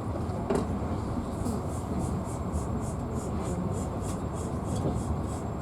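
Passenger train running, heard from inside the carriage: a steady low rumble of wheels on the rails, with a high hiss pulsing three to four times a second and a single sharp click about half a second in.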